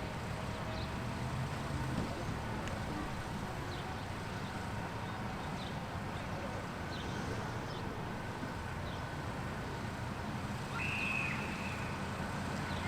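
Outdoor ambience: a steady low rumble with scattered short high chirps, like small birds, and a brief higher chirp about eleven seconds in.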